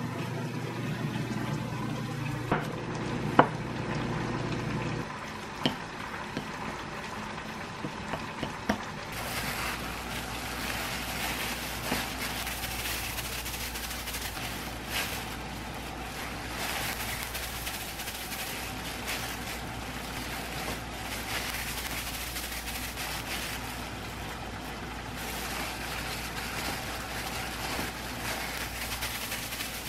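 Wooden chopsticks stirring rice in a ceramic bowl, with a few sharp clicks against the bowl. From about nine seconds in, a steady rushing noise takes over, with soft crackles as plastic-gloved hands press rice into balls.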